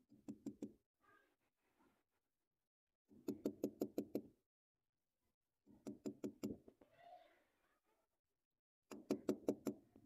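A padlock being rapped in four quick bursts of sharp knocks, each burst five to nine strikes fast in a row.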